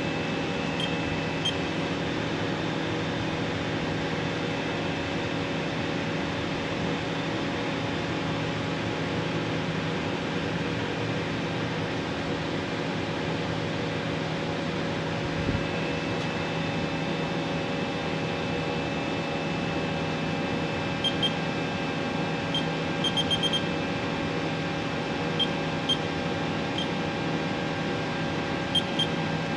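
Haas VM3 CNC vertical machining center running with its spindle at a steady speed: a constant whine of several held tones over machine hum. Short high beeps sound a few times, mostly in the second half.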